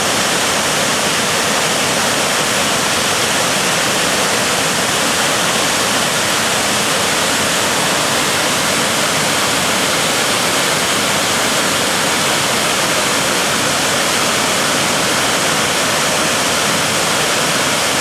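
Tahquamenon Upper Falls, a wide waterfall, pouring over its ledge: a steady, loud rush of falling water that does not change.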